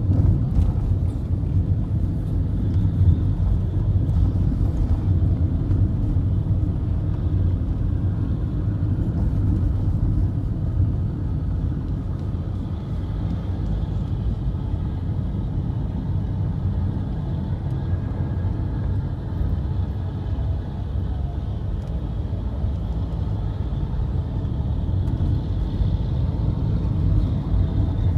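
Car driving along at a steady pace, heard from inside the cabin: a constant low rumble of engine and road noise.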